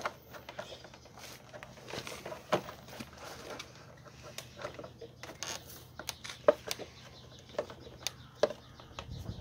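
Hollow vinyl balusters and rail knocking and clicking against each other as pickets are fitted into a stair top rail: irregular light taps, a few of them sharper.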